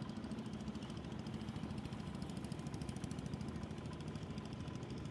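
Motor boat engine running steadily, a low, even rumble with a rapid pulsing beat.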